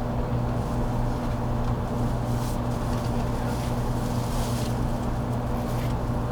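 JR Kyushu 783 series electric train car standing still at a station, heard from inside the car: the steady low hum of its onboard equipment, with no running or motor noise.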